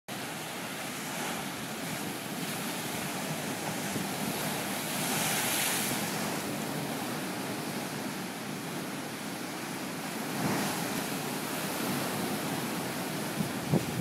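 Lake waves breaking and washing against a rocky shore in a steady surf, with a louder wash about five seconds in and again about ten seconds in. Wind buffets the microphone, with a few low thumps near the end.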